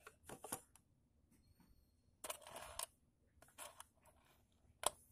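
Faint clicks and rattles from a stainless-steel link watch bracelet being handled on a wooden table, with a short scratchy rustle a little past two seconds in and one sharper click near the end.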